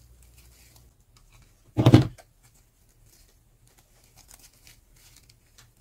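Satin ribbon petals rustling and crinkling faintly as a ribbon rose is turned and pressed in the hands, with one short loud thump about two seconds in.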